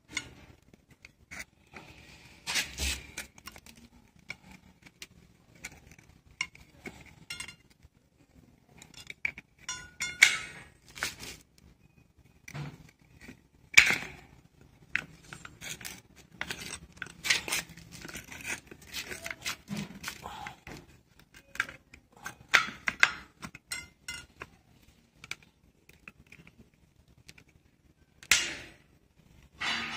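Metal clinks, clicks and scrapes of motorcycle drum brake shoes being worked onto the brake backing plate by hand, coming in irregular bursts, with the sharpest click about 14 seconds in.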